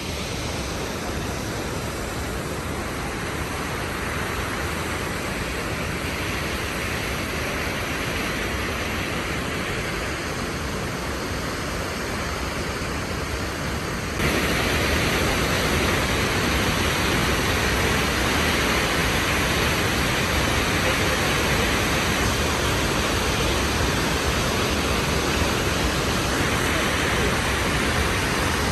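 Steady rush of a large waterfall, Cane Creek Falls, falling water filling every pitch evenly. About halfway through it jumps suddenly louder and brighter, then holds steady again.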